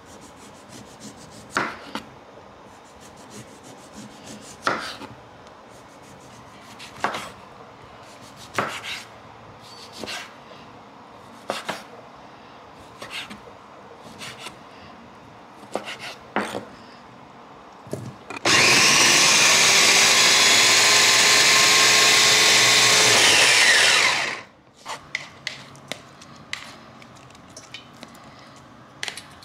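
A ceramic knife cutting a lime on a wooden chopping board, with a knock every second or two as the blade meets the board. About two-thirds in, the electric motor of a kitchen blender runs loudly and steadily for about six seconds, then winds down and stops.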